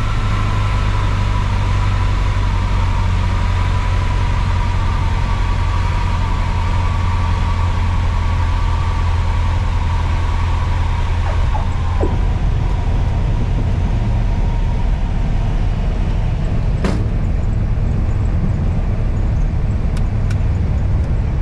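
Cabin noise of an Embraer Tupi single-engine piston airplane on landing: the engine running at low power with airflow noise as the plane slows from about 135 to 90 km/h on touchdown and rollout. A thin steady whine fades about halfway through, with a few light knocks around then and a single sharp click later.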